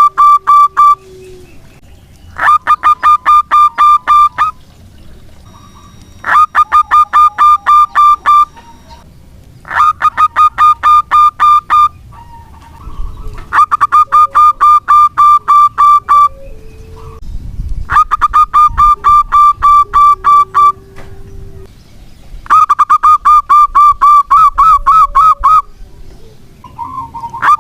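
Zebra dove (perkutut) cooing: a rapid string of notes in repeated bouts of about two to three seconds, every three and a half to four seconds, recorded so loud it distorts. Softer, lower calls sound between the bouts.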